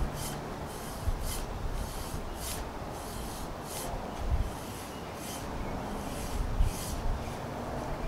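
Copper ground rod being worked up and down by hand in a water-filled hole in the soil: repeated short rubbing and scraping strokes, a couple a second, with a few dull thumps as it is pushed down.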